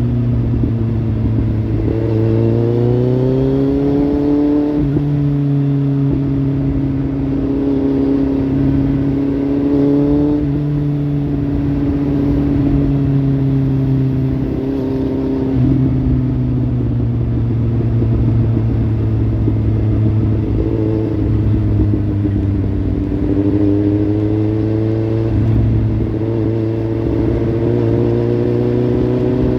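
Kawasaki Z800's inline-four engine running through a Lextek slip-on exhaust. The engine speed climbs a few seconds in, eases off slowly through the middle, and builds again near the end.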